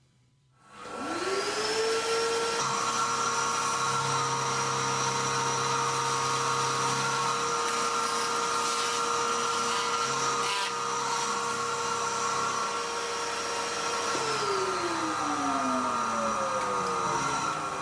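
Syil X7 CNC milling machine spindle spinning up with a rising whine, running at steady speed over a constant hiss, then winding down with a falling whine about fourteen seconds in while the hiss continues.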